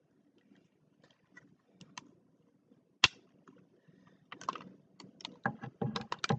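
Plastic tiles of a Rubik's Magic folding puzzle clicking and clacking together as it is flipped and refolded: scattered light clicks, one sharp clack about three seconds in, then a quick run of clacks near the end.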